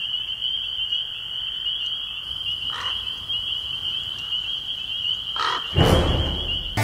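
A night chorus chirping steadily at a high pitch. Near the end a louder, low rush of noise comes in.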